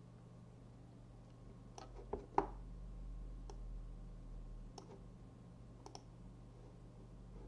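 A handful of faint, scattered clicks from working a computer, the loudest about two and a half seconds in, over a steady low hum.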